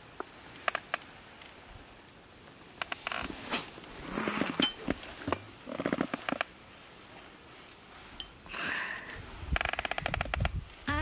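Scattered sharp clicks and short rustles of things being handled, with a quick run of rapid ticks near the end.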